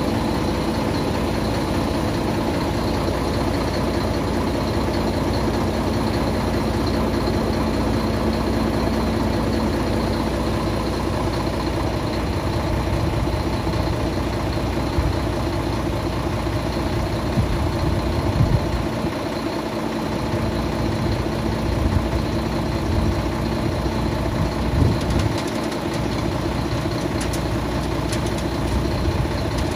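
Scania tipper truck's diesel engine running steadily at idle while its hydraulics raise the tipper body. A few short knocks come through in the second half.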